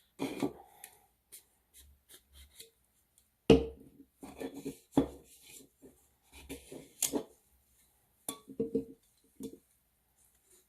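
Acrylic tumbler parts handled and cleaned: irregular clicks and knocks of hard plastic against the work surface and tools, the sharpest about three and a half seconds in.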